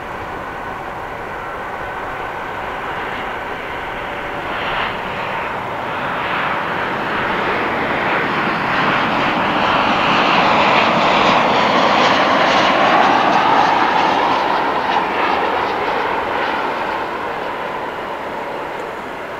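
Boeing 747 freighter's four jet engines running at taxi power as it rolls past. The engine noise grows louder to a peak a little past halfway, with a whine that dips and then rises in pitch as the jet passes, then fades.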